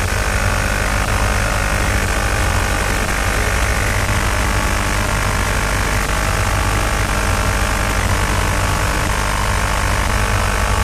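Steady low rumble with a band of steady humming tones over a hiss, unchanging throughout: vibration of the Orion spacecraft under rocket power during ascent.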